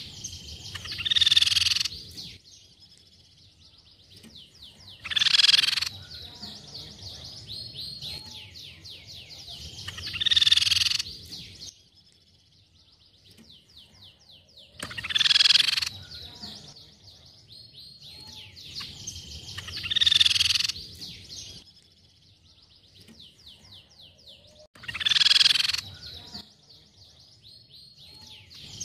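Crescent-chested babbler (tepus pipi perak) calling: a loud burst of high notes about every five seconds, each running on into a fast, dry rattling trill that lasts a few seconds.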